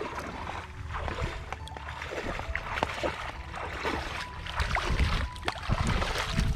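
Water splashing and sloshing in irregular bursts, over background music.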